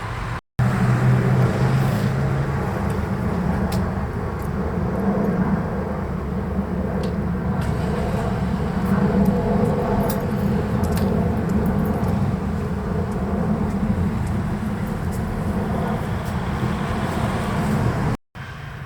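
Steady low rumble of a vehicle running, with a low hum near the start that fades after about two seconds. The sound cuts out briefly just after the start and again near the end.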